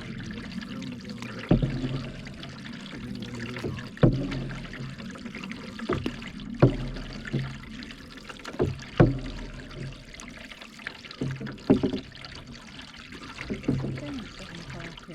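Canoe paddle strokes in lake water: water trickling and splashing off the blade, with a sharp knock at each stroke about every two and a half seconds.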